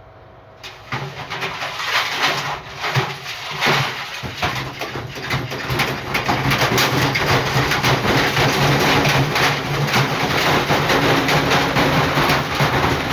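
Battery-powered washing machine starting up about a second in, its motor humming and drum spinning with a dense, rapid rattling and knocking that builds over the first few seconds and then holds steady.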